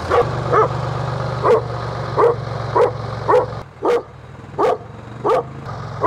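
A dog barking over and over, about nine barks with a bark every half to three-quarters of a second. A steady low hum runs underneath and drops away for a couple of seconds in the middle.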